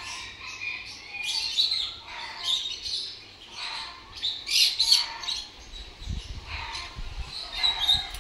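Cockatiels chirping and calling in short bursts, about one a second, with a low rumble in the second half.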